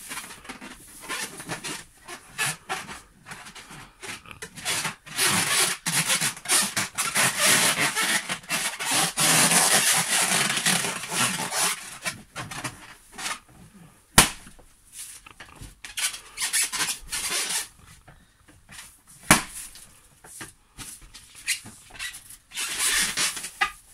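Inflated latex balloons squeaking and rubbing as a person squeezes and sits on them, then a sharp pop about 14 seconds in, the loudest sound, and another about 19 seconds in as balloons burst.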